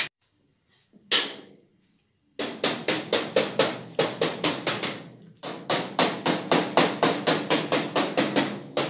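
Hammer striking copper dome panels in quick, even blows, about four to five a second, in two long runs with a short break between them. A brief scrape-like sound comes about a second in, before the hammering starts.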